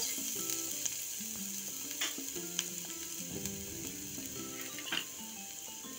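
Chopped onion sizzling in hot oil with cumin seeds and green chillies in a non-stick frying pan, a steady frying hiss with a few light clicks. Soft background music with held notes plays over it.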